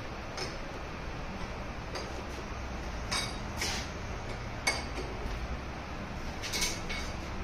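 Manual metal lathe running with a steady low hum, with a handful of light metallic clinks and ticks from the tool post and carriage, the sharpest about three and four and a half seconds in.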